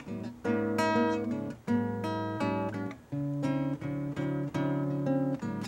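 Acoustic guitar playing a samba introduction: rhythmic strummed chords, with no singing yet.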